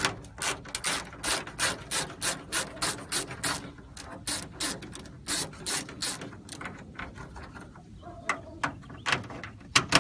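Socket ratchet clicking in quick runs while backing off the 9 mm nuts that hold a hood vent, about three clicks a second, with short pauses between runs.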